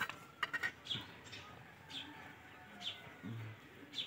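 Faint bird chirping: short high chirps falling in pitch, about one a second, with a few soft clicks near the start.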